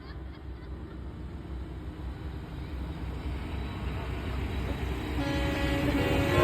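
Semi trucks' diesel engines running, a steady low drone that slowly gets louder. About five seconds in, a multi-note truck air horn starts faintly and swells.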